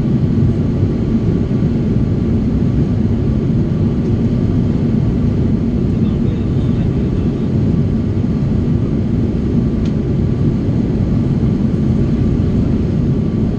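Cabin noise inside an Airbus A330-200 airliner in flight: a steady deep rumble of engines and airflow, with a faint steady hum above it.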